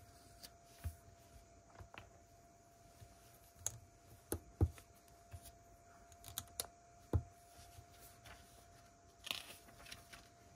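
Plastic Lego pieces being handled and snapped together: scattered, irregular sharp clicks, several louder ones in the middle, and a short rustle near the end.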